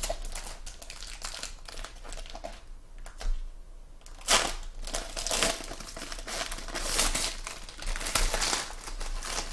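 Foil wrappers of Panini Court Kings basketball card packs being torn open and crinkled by hand: irregular crackling rustles, louder and busier from about four seconds in.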